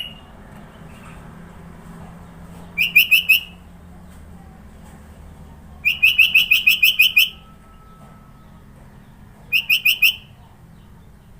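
Sooty-headed bulbul (kutilang) singing three bursts of rapid, evenly repeated high notes, the middle burst the longest at about a second and a half.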